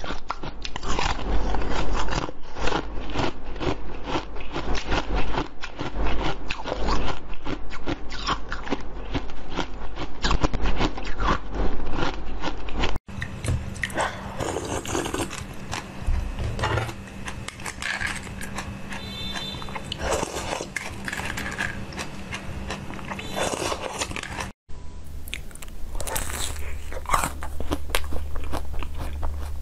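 Close-miked eating sounds of jelly sweets being bitten and chewed. For the first dozen seconds there is dense, rapid crackling; after a cut about 13 s in come sparser bites with a faint steady hum underneath, and after another cut about 25 s in, more scattered bites.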